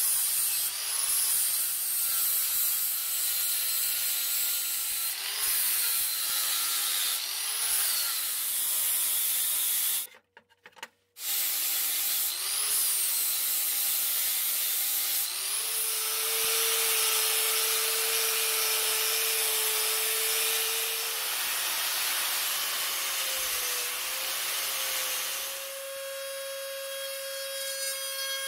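Angle grinder with a flap disc grinding the hardened steel of an anvil, its pitch dipping and recovering again and again as it is pressed on and eased off. There is a brief break in the sound about ten seconds in. Later the grinder runs steadily, and near the end a higher-pitched whine comes in from a rotary tool running a carbide burr.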